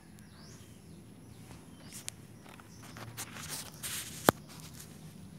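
Phone being handled and set down at floor level while bare feet move on a concrete floor, giving small knocks and scuffs and one sharp click about four seconds in.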